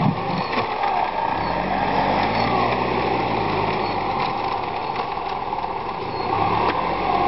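Off-road SUV engine running under load as the vehicle crawls through deep mud ruts, its revs rising and falling.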